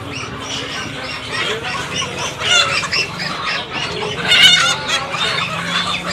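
Many chickens clucking, with one louder call about four seconds in.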